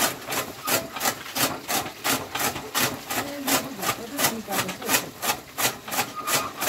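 Hand-cranked chaff cutter chopping green leafy fodder: its flywheel-mounted blades slice through the stalks in a steady rhythm of about three cuts a second.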